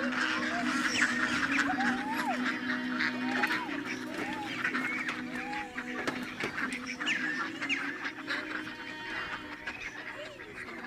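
Ducks or geese calling with short rising-and-falling honks, about one a second, over soft background music that fades out about halfway through.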